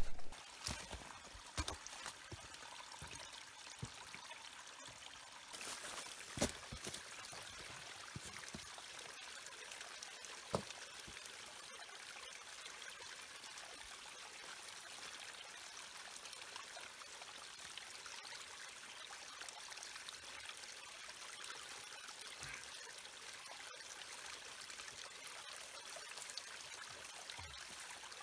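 Small mountain creek trickling over rocks, a steady faint splashing hiss. A few footsteps and knocks on stony ground sound in the first several seconds.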